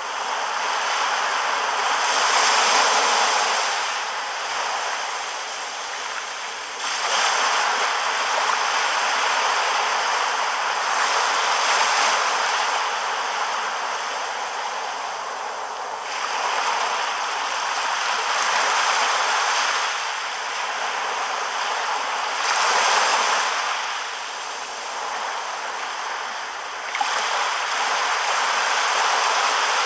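Sea waves breaking and washing up a sandy beach. The surf surges louder every few seconds as each wave runs in, then eases off.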